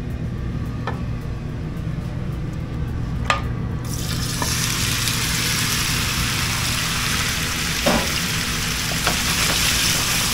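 Cubed pork going into a very hot frying pan: a few sharp utensil clicks, then a loud, steady sizzle that starts suddenly about four seconds in, with a knock of the pan or utensil near the end, over a steady low hum.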